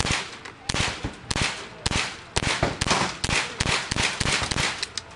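Suomi pistol firing a string of about fifteen single shots, a few spaced out at first and then coming rapidly, about four or five a second, before stopping. Every round cycles without a stoppage, the gun running flawlessly on its first time out.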